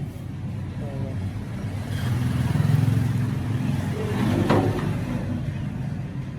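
A steady low motor rumble that swells about two seconds in, with a brief rasp of sound about four and a half seconds in.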